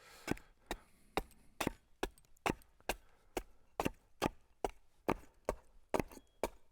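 A blade chops into cedar wood over a dozen times in a quick, even rhythm, about two strikes a second, trimming the edges of hand-split cedar shakes.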